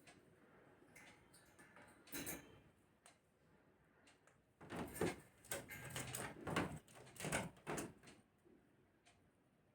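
Pet parrot making a string of short, raspy calls: one about two seconds in, then a quick run of about seven in the middle.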